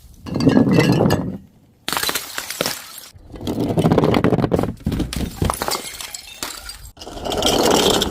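Glass bottles breaking and shattering, four loud crashes in a row with clatter between them.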